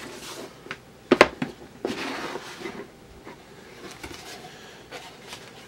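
A cardboard gift box being handled and its lid opened: a sharp knock about a second in, then a brief rustling scrape and a few light clicks.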